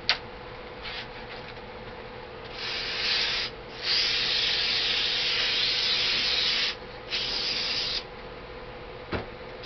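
Aerosol can of paint stripper spraying a heavy coat in three bursts: a short one, a long one of about three seconds, then another short one. A sharp click comes at the start and another near the end, over a faint steady hum.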